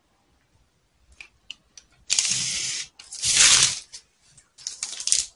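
Clear plastic sheet crinkling and rustling as it is unrolled and spread out by hand: a few light clicks, then three rustling bursts in the second half.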